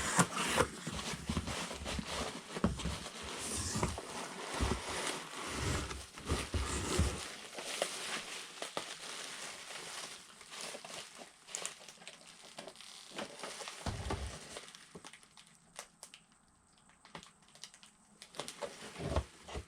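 Packaging of a Funko Pop vinyl figure being handled and opened: rustling and crinkling of cardboard and plastic, with a few low bumps. It thins out to occasional clicks in the second half.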